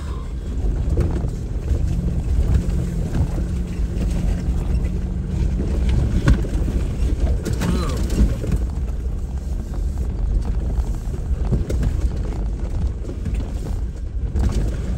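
Off-road Jeep driving slowly over a rough dirt trail: a steady low engine and drivetrain rumble with scattered knocks and rattles from the body and suspension over bumps and dips, the busiest stretch about six to eight seconds in.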